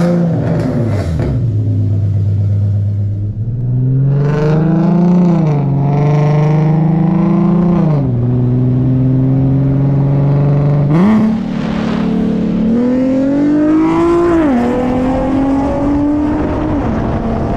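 Nissan 370Z Nismo's 3.7-litre VQ37 V6 running through freshly fitted ISR long-tube headers and a Greddy single-exit exhaust. It blips quickly at the start, then revs up and settles back several times, holding steady between rises.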